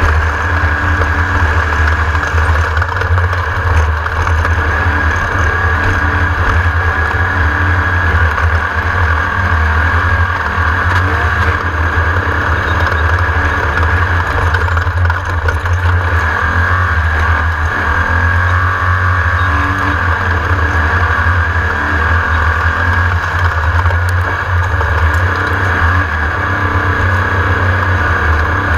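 Class 1600 off-road race buggy's air-cooled Volkswagen engine running hard at a steady pitch: a loud low drone with a steady higher tone over it and no let-up.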